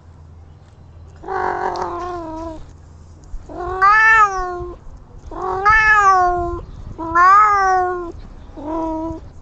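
A cat meowing five times, each meow about a second long, rising and then falling in pitch, with short pauses between. A faint low hum lies underneath.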